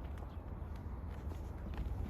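A steady low rumble with a few faint, short ticks spread through it, about one every half second.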